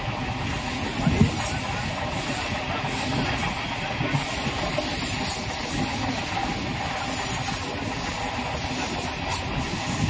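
Steady rushing and rumbling of a moving vehicle heard from on board, with a brief knock about a second in.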